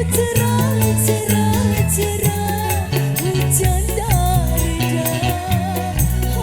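Music: a wavering, ornamented melody over a stepping bass line and steady percussion.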